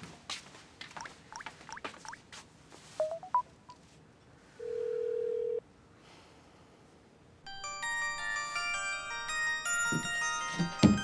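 Soft taps and two short rising beeps as a number is dialled on a smartphone, then one steady ring-back tone about a second long. Past the middle, a smartphone's chiming ringtone melody starts up as the call comes in, with a couple of low knocks near the end.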